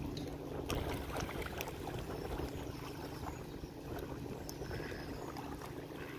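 Lake water lapping with small, scattered splashes from mallards feeding close by, over a steady low rumble.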